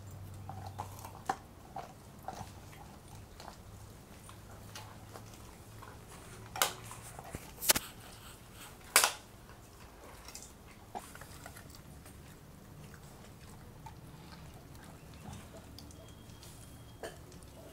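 A Rottweiler chewing and gnawing a raw meaty bone, with frequent small wet clicks of teeth and three loud sharp crunches a little past the middle.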